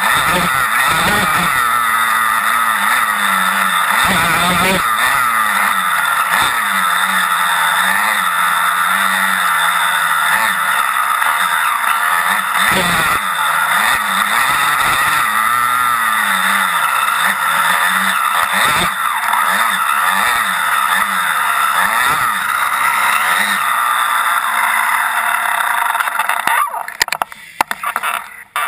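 Small off-road racing engine heard close from an onboard camera, revving hard and easing off over and over, its pitch rising and falling every second or two. Near the end the engine sound drops away sharply and cuts in and out.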